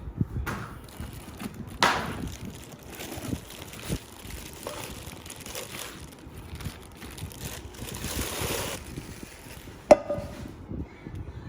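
Handling noises: rustling, scraping and light knocks, with one sharp clack about ten seconds in that rings briefly.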